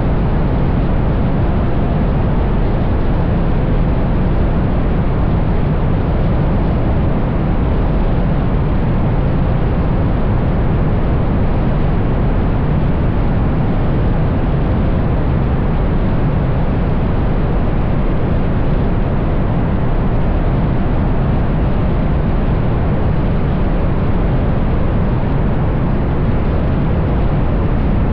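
Ferrari GTC4Lusso driving at a steady speed: a constant rush of wind over the car-mounted microphone and tyre noise, with no clear engine note or change in revs standing out.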